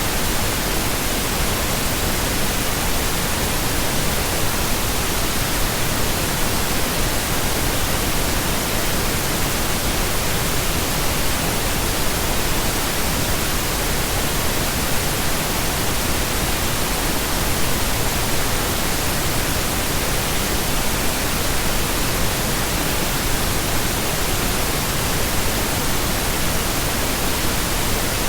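Steady, unbroken pink noise: an even hiss spread across all pitches, with no changes or events.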